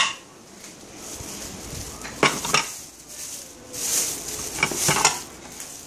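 Shopping items being handled on a cluttered table: a few light knocks and clinks and a short stretch of rustling, as goods are moved about and picked up.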